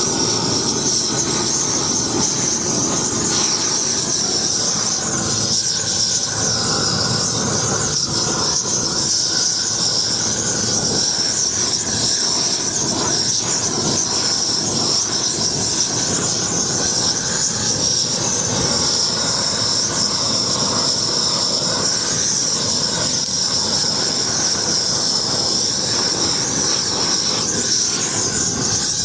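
Propane weed torch burning at full gas: a loud, steady jet of burning gas with a high hissing edge, unbroken throughout.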